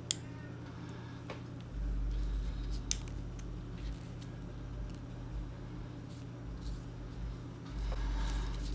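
Small metal clicks and ticks of a bare screwdriver bit and tweezers working the tiny screws of an iPhone 8 Plus home-button bracket, with two sharper clicks, one at the very start and one about three seconds in. Two stretches of low rumble and a steady low hum lie under it.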